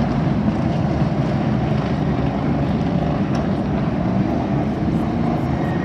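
A pack of late model stock cars' V8 engines running steadily at low caution pace.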